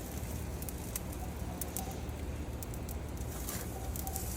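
Raw chicken breasts sizzling on a hot grill, with scattered sharp crackles over a steady low rumble.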